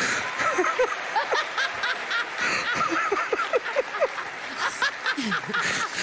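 Studio audience laughing heartily, many voices at once, with scattered clapping.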